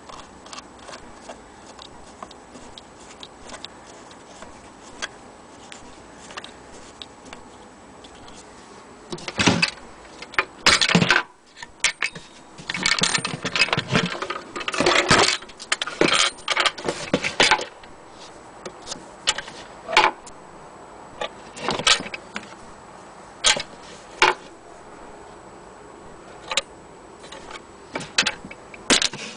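Antique sewing machine's wooden case and fittings being handled. A quiet stretch of faint ticks, then from about a third of the way in, irregular clusters of knocks, clatters and rattles of wood and small metal parts.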